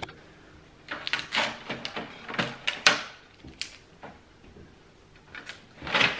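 Plastic clicks and scrapes from the paper tray of an HP Envy Photo 7155 printer: the paper-width guides are slid and set, and the tray is pushed back into the printer near the end, the loudest sound.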